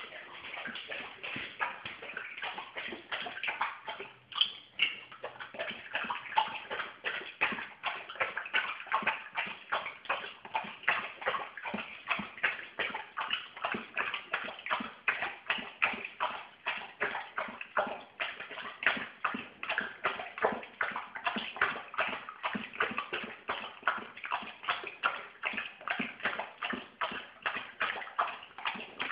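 A basset hound puppy making a steady run of quick taps, about three a second.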